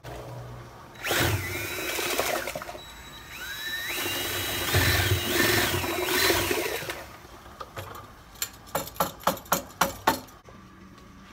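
Cordless drill spinning a mixing wand in a plastic fermenter bucket. The drill whirs in stretches, its pitch rising and shifting as the trigger is squeezed and eased. It is followed by a run of about a dozen sharp clicks.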